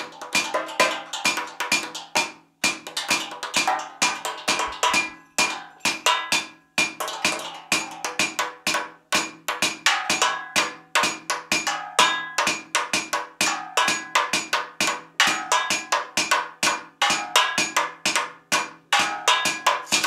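Quick, rhythmic percussion played with mallets on old metal jugs and cans hung in a cluster, each strike ringing, about six strikes a second with brief breaks.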